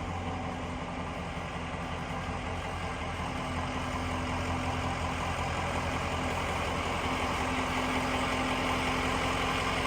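Ambulance engine idling steadily, a constant low hum.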